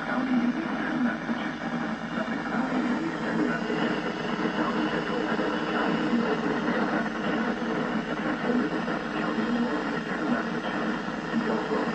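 Broadcast radio audio full of steady static hiss, typical of a weak signal, with faint voice sound under it.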